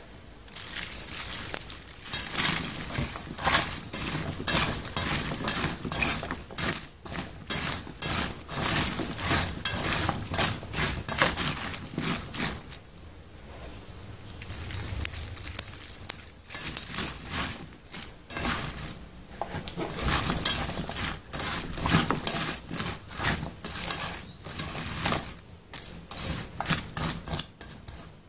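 Chopped napa cabbage being salted and tossed by hand in a stainless steel bowl: irregular crisp crackling and rustling of the leaves, in bouts, with a quieter stretch about halfway through.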